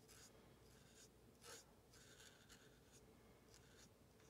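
Very faint strokes of a Stampin' Blends alcohol marker's brush tip colouring over a stamped paper image.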